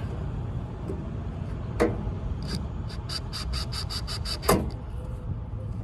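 Drill-driver on its lowest torque setting driving a small cover screw, its clutch slipping in a quick run of even clicks, about six or seven a second, as the screw seats. A sharp knock comes just before the run and another just after it.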